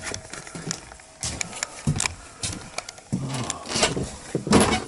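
Footsteps on a narrowboat's wooden floor and cabin steps, irregular knocks and clicks with clothing and camera-handling rustle, and a louder bump about four and a half seconds in.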